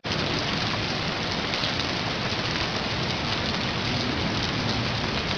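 A steady hiss with a dense, fine patter, like rain falling on a surface.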